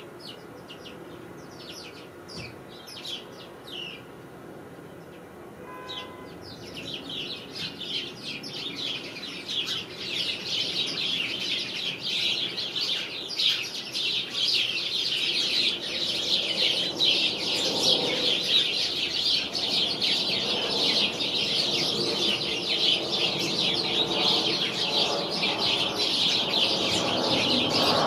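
Flock of sparrows chirping. At first there are only a few scattered chirps; about six seconds in, the whole flock starts a dense, continuous chirping chorus that grows steadily louder.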